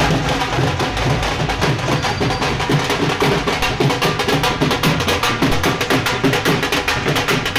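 Several dhol drums beaten with sticks in a fast, steady rhythm of many strikes a second.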